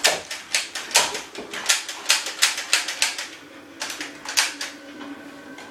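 Nerf blasters clicking fast, about five or six sharp clicks a second for three seconds, then a few more clicks after a short pause.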